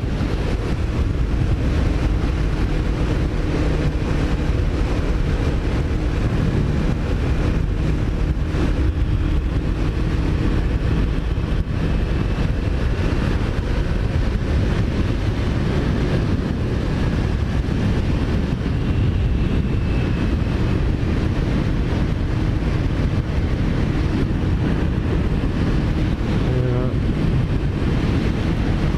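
Kawasaki Ninja 400's parallel-twin engine running steadily under way, with wind rushing over the microphone and road rumble.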